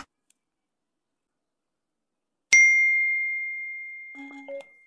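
A single bright bell-like ding, struck once about halfway through and ringing down slowly, with a brief low tone sounding near the end as it fades.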